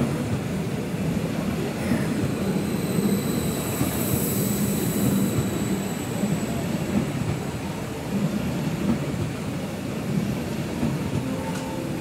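Electric multiple unit rolling along the platform: a steady rumble of wheels on track, with a faint high tone over the first half.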